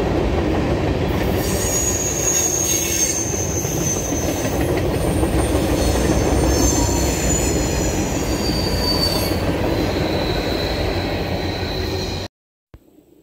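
Norfolk Southern freight train's cars rolling past close by: a steady rumble of wheels on rail, with high wheel squeal that comes and goes from about two seconds in. The sound cuts off abruptly near the end.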